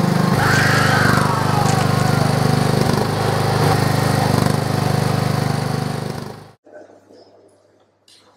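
Ride-on lawn mower engine running steadily and loudly, with a high sound falling in pitch about half a second in. The engine sound cuts off suddenly about six and a half seconds in.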